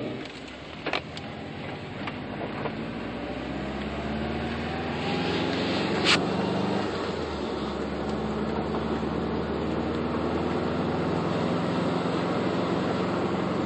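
Car engine and road noise heard from inside the cabin while driving, the engine note rising as the car speeds up, then holding steady. A short click about a second in and a sharper, louder click about six seconds in.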